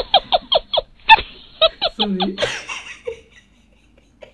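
A woman laughing hard, about five rapid bursts a second, with a short "sorry" spoken through the laughter about two seconds in. The laughter dies away about three seconds in.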